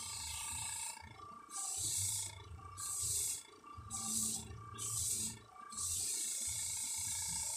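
Airbrush spraying pink paint in about six short bursts of hiss as the trigger is pressed and released, the longest near the end, with a low rumble underneath.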